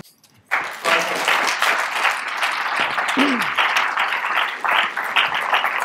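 Audience applauding: a dense, steady patter of many hands clapping that starts abruptly about half a second in.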